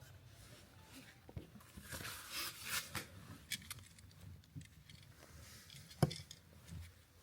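Small handling noises from a hand working a new three-prong electrical outlet and its wiring: rustling and light clicks, with one sharper click about six seconds in.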